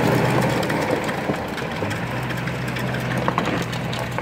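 Pickup truck engine running with a steady low hum that fades briefly about half a second in, then returns.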